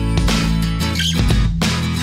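Background music led by guitar, with sustained notes over a steady bass line.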